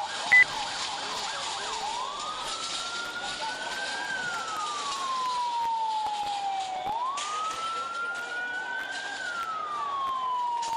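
Emergency vehicle siren on a slow wail: its pitch climbs over about two seconds, then sinks over about three, repeating roughly every five seconds over steady street noise. A short, loud high beep sounds just after the start.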